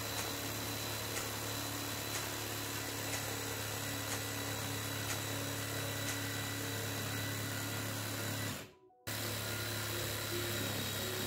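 Parkside 20 V cordless jigsaw running steadily while cutting through a 40 mm chipboard worktop, on pendulum setting 0. The sound drops out for about half a second around nine seconds in, then picks up again.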